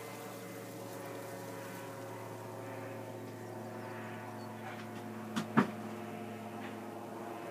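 A motor running at a steady low hum, with two sharp knocks close together about five and a half seconds in.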